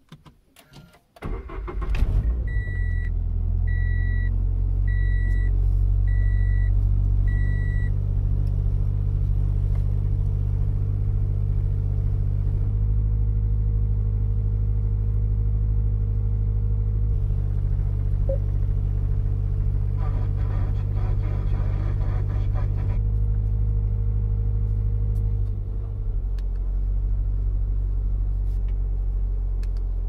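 Subaru BRZ's 2.0-litre flat-four engine starting about a second in, then idling steadily, heard from inside the cabin. A dashboard warning chime beeps five times, about once a second, just after the start.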